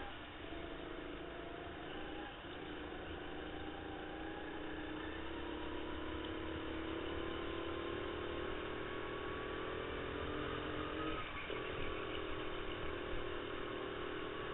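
Indoor go-kart engine running under load on board the kart, its pitch climbing slowly, with brief dips about two seconds in and again near eleven seconds.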